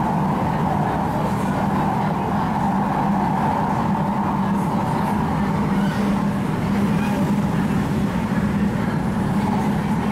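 Interior running noise of an MTR Tung Chung Line K-train electric multiple unit travelling between stations: a steady rumble with a low hum and a higher drone, unchanging throughout.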